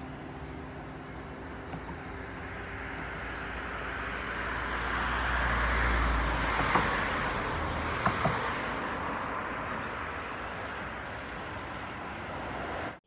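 Road traffic on a bridge: a vehicle driving past, its tyre and engine noise swelling to a peak about halfway through and then fading, with a few faint knocks in the middle. The sound cuts off abruptly near the end.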